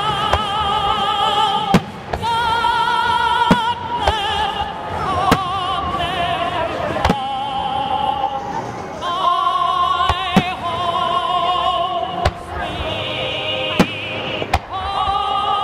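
Music with a singer holding long notes with vibrato, played loudly, while fireworks bang through it, about nine sharp reports spaced irregularly a second or a few seconds apart.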